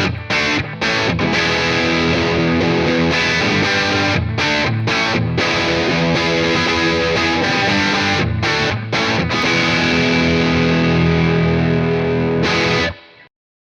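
Gibson Les Paul '58 Reissue on its bridge pickup, played through an overdriven Bogner Shiva EL34 tube amp and 2x12 cabinet. It plays a distorted chord riff with a few brief stops. The last chord rings out and fades near the end.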